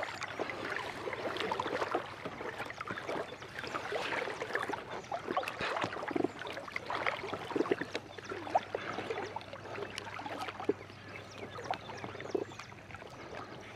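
Water splashing and dripping as a wet fishing net is pulled up out of the water by hand, with many small irregular splashes and drips.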